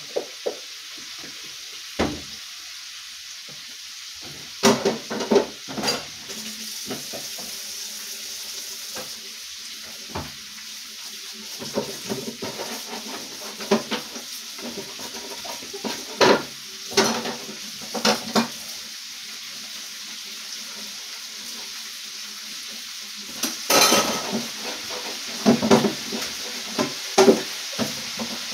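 Flour-dredged chicken drumsticks frying in hot oil: a steady sizzle with irregular sharp pops and clicks, which come thicker at a few points.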